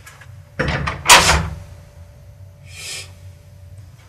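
A door banging shut: a short knock about half a second in, then one loud thud about a second in, followed by a brief soft rustle near the end.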